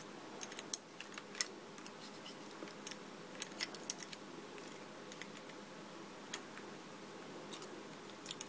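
Small metal clicks and ticks at an uneven pace as a nut is tightened with a little flat spanner on a metal construction-set chassis, the tool and parts knocking lightly against the perforated metal strips.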